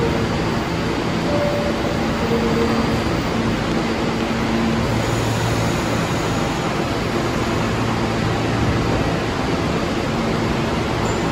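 New York City subway train noise: a steady rumble and hiss with a low, even hum, which strengthens between about five and nine seconds in.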